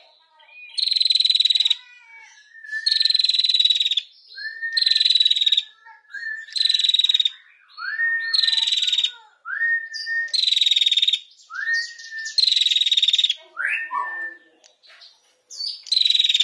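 Female prenjak calling in a repeated pattern: a short rising note followed by a loud, rattling high trill about a second long, given over and over roughly every two seconds.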